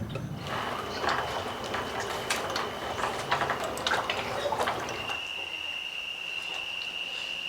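Irregular splashing and dripping water with many small clicks. About five seconds in it changes to a steady, high, unbroken tone with a few bird chirps.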